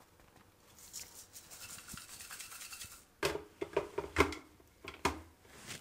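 Black plastic lid being turned onto a spice-grinder jar full of whole coriander seeds and dried red chillies, with a soft scraping rustle. About three seconds in come a few sharp clicks and knocks as the jar is set and locked onto the electric grinder base; the motor is not yet running.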